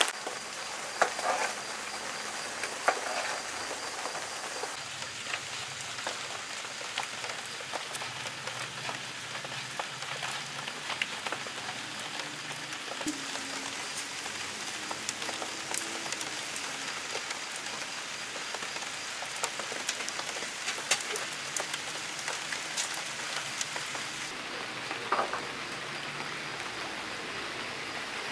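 Steady rain falling on surfaces, with scattered sharper drops landing here and there.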